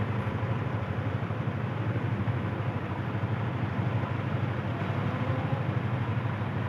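Petrol station fuel dispenser running as it pumps petrol into a scooter's tank: a steady low hum.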